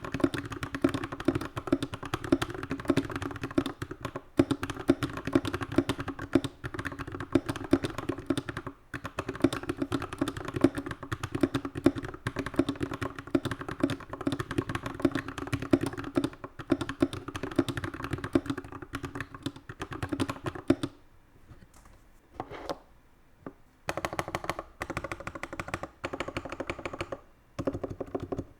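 Typing on a custom 60% keyboard with a wooden case and lubed Glorious Panda tactile switches: a fast, continuous clatter of keystrokes. About 21 seconds in the typing stops briefly, then comes back in shorter runs of keystrokes.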